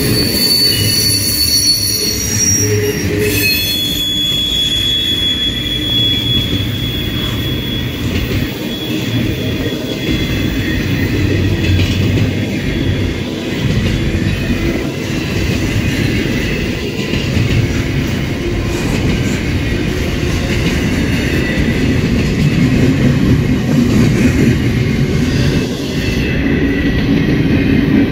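Norfolk Southern double-stack container train's well cars rolling past, picking up speed: a steady loud rumble of steel wheels on rail. Thin high-pitched wheel squeals ring over it for the first several seconds.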